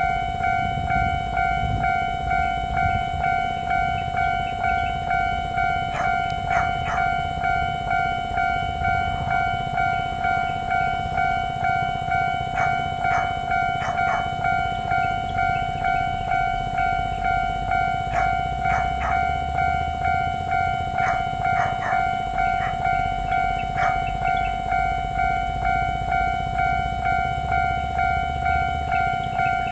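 Taiwanese railway level-crossing warning signal sounding its steady electronic ding, repeating about one and a half times a second, with a train rumbling over the crossing underneath and occasional sharp clicks from the wheels and rails.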